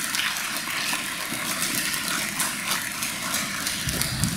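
Audience of students and parents applauding in a school hall: a dense patter of many hands clapping, with a low bump near the end.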